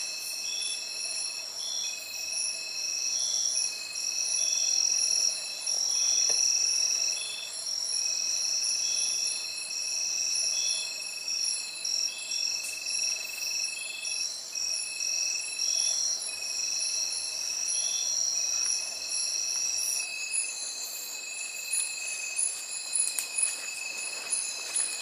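Night insect chorus: several high, thin trills overlapping, one of them swelling and fading about once a second until it stops a few seconds before the end.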